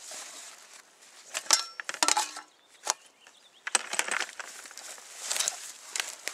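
Camping gear being handled and moved: a few light clinks and rattles, two of them ringing briefly like small metal parts, then rustling and crunching in the brush.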